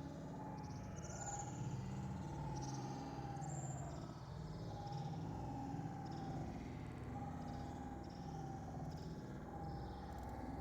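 Domestic cat purring steadily, a low rumble that swells and eases every second or two.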